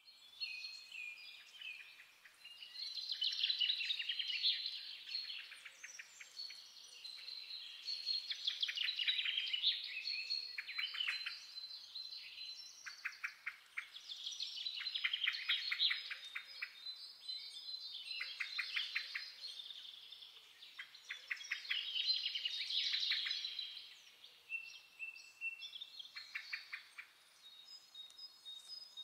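European greenfinch singing: rapid twittering trills in phrases of a second or two, one after another.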